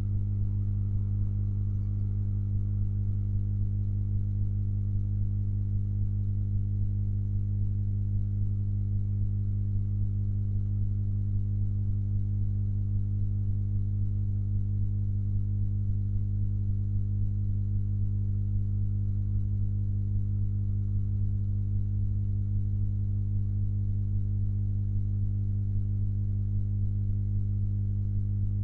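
Steady low electrical mains hum, unchanging throughout.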